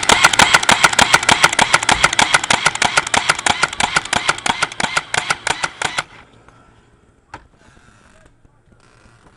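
Battery-powered airsoft handgun with a silencer firing one long fully automatic burst, a fast run of sharp shots at about eight a second that stops about six seconds in.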